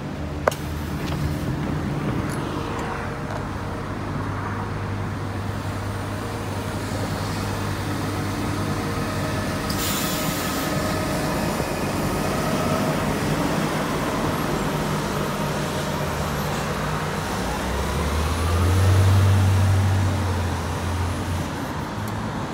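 New Flyer C40LFR transit bus with a Cummins Westport ISL-G natural-gas engine, running and heard first from inside the cabin and then from the curb. About halfway through, a short hiss of air comes as the bus pulls away from the stop, and its engine note swells near the end.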